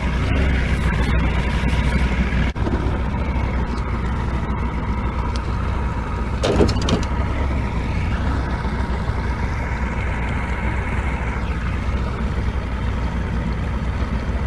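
A fishing boat's engine running steadily, a low hum with steady tones above it, with one short higher-pitched sound about six and a half seconds in.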